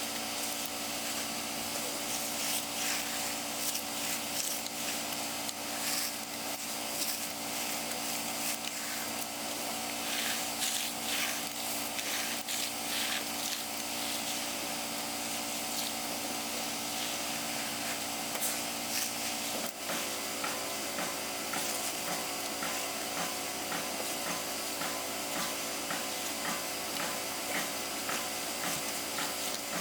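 Scraping strokes of a float or trowel over wet concrete, over a steady mechanical hum.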